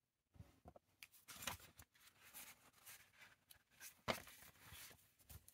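Faint rustling of paper and small taps as a notebook and loose sheets are handled on a desk, with a sharper tap about four seconds in.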